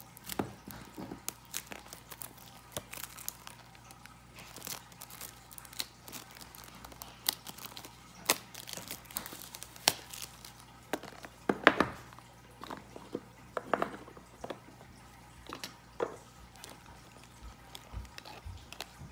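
Hands opening a small cardboard album box and handling its plastic wrapping: scattered crinkles, rustles and light taps, with the loudest crinkling about twelve seconds in.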